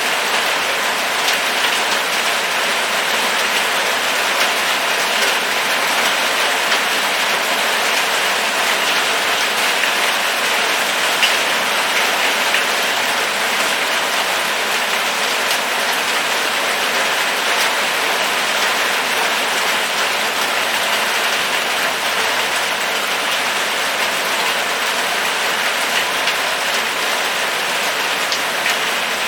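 Steady rain falling, an even hiss with scattered sharper ticks of single drops striking.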